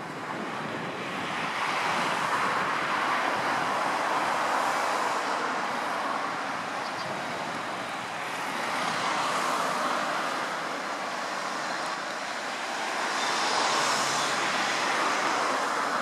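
Steady rushing outdoor background noise that swells and fades three or four times, with no bird calls.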